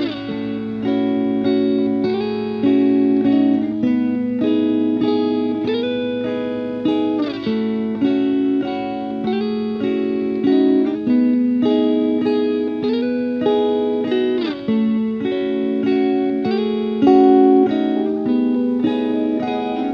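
Background music: a plucked guitar tune played in a steady rhythm, some notes sliding in pitch.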